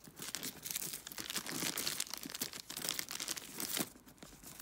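Clear plastic protective wrap on a new handbag's handle crinkling as hands grip and move it, a dense run of irregular crackles that dies down near the end.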